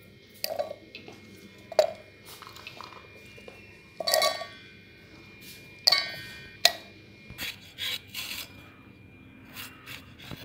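Scattered clinks and knocks of a stainless-steel mixer-grinder jar as ingredients are put into it, several with a short metallic ring.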